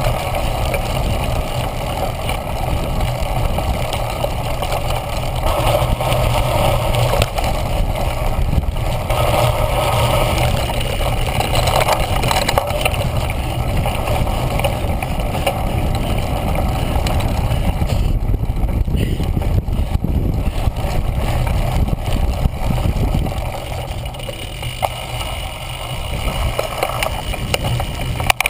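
Steady wind buffeting and tyre rumble from a cyclocross bike being ridden over grass and dirt, picked up by a camera mounted on the handlebars.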